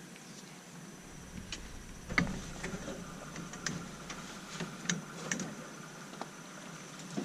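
Irregular light knocks and clicks, about a dozen, the loudest about two seconds in, over a faint steady background hum.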